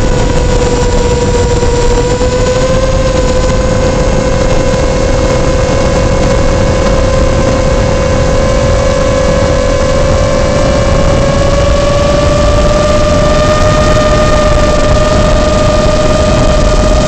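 Quadcopter motors and propellers humming steadily in a climb, with a rushing noise underneath. The pitch creeps a little higher a bit past halfway through.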